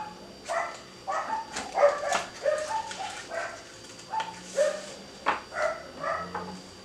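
Dogs barking over and over, a dozen or so short separate barks.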